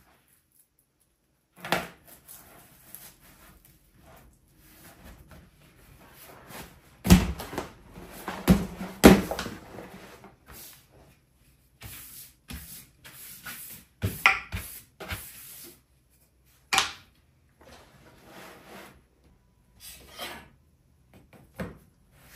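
Leatherworking handling noises: a scattering of sharp knocks of tools or pieces set down on a hard surface, the loudest about seven and nine seconds in, with rubbing and shuffling of material between.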